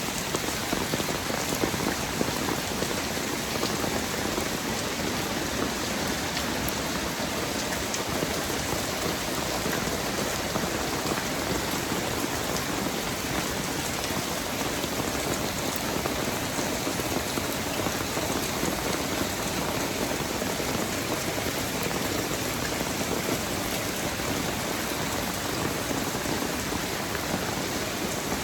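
Steady rainfall: a dense, even hiss of rain with scattered sharper drop hits close by.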